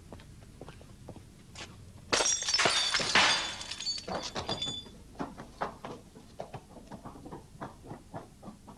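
A glass bottle smashing over a person's head about two seconds in: a sudden crash of breaking glass with a bright ringing, then shards clinking and tinkling for a couple of seconds. Faint scattered clicks come before and after.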